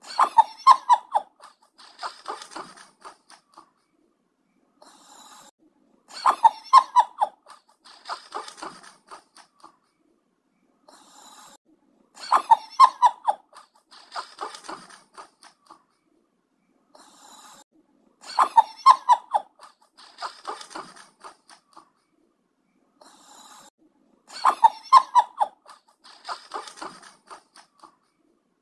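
A short sound clip of quick, pulsing, pitched sounds that repeats in exactly the same pattern about every six seconds, five times over, as a looped sound effect.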